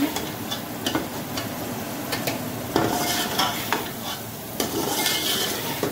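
Thick spice masala frying in hot oil in a metal pot, sizzling, while a metal ladle stirs it and scrapes the pot with scattered clicks. The masala is fully fried, the oil separated from it.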